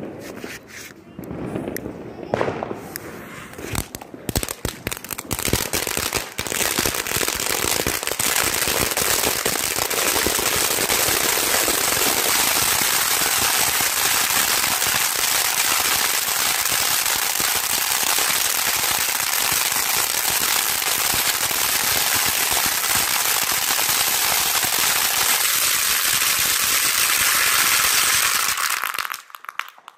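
Crackling fountain firework going off. It starts with a few scattered pops and crackles; about six seconds in, it catches fully and runs with a dense, steady hissing spray full of fast crackles, then stops suddenly shortly before the end.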